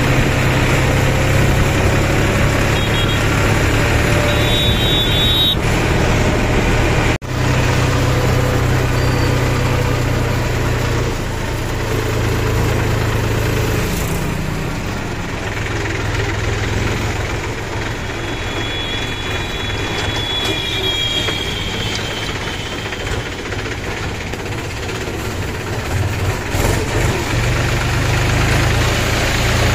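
Mahindra tractor's diesel engine running steadily under way, a constant low hum heard from the driver's seat.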